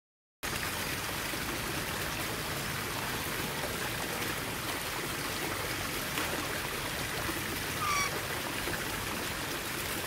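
Steady rushing background noise like running water, starting abruptly about half a second in, with one short bird chirp about eight seconds in.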